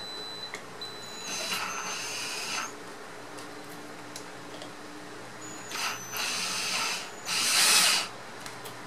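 Cordless drill running in three short bursts of a second or so each, driving the shaft of a 0.75 kW water-pump motor that is being tested as a generator. The last burst, near the end, is the loudest.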